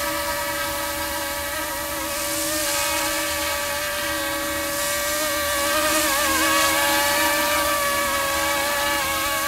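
Brushless direct-drive motors and rotors of a YXZNRC F09 UH-60 Black Hawk RC helicopter whining steadily in a low hover, with a high rushing hiss over the top. The pitch wavers briefly about six seconds in, as the helicopter corrects its hover.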